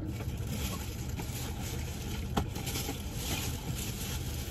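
Steady background rumble and hiss, with a single sharp click about two and a half seconds in.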